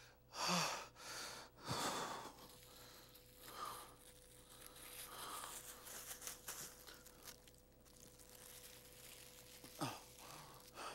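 A man breathing heavily, with a couple of loud, rasping exhales near the start and a short voiced gasp near the end, while a crumpled clear plastic bag crinkles softly in his hands.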